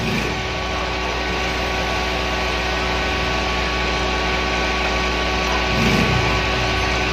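DIY power amplifier humming steadily through its connected speaker with the volume up: a constant low mains hum with a stack of steady overtones. This is the hum fault the owner complains of, which the technician suspects comes from poor grounding of the chassis, transformer or capacitor negatives.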